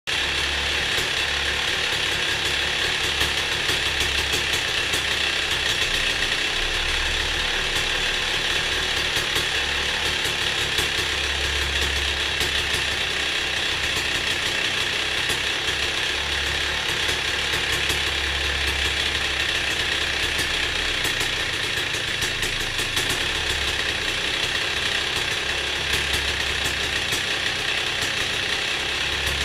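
Yamaha YZ250 single-cylinder two-stroke engine running steadily, freshly rebuilt top end.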